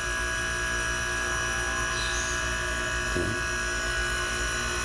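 Single-phase refrigeration compressor of a home-built R22 system running steadily, a continuous hum with a high whine over it. The system is in operation, pulling the evaporator coil down to freezing.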